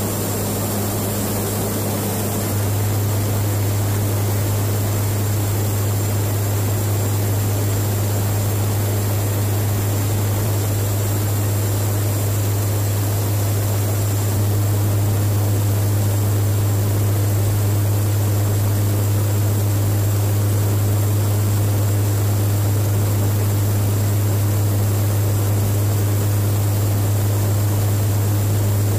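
Steady drone of a KC-130J Hercules's four turboprop engines and propellers heard inside the cabin: a strong low hum with an even hiss over it.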